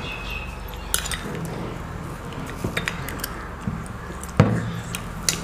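A spoon clinking against a dish, six or so separate clicks with the loudest about four and a half seconds in, over a low steady hum.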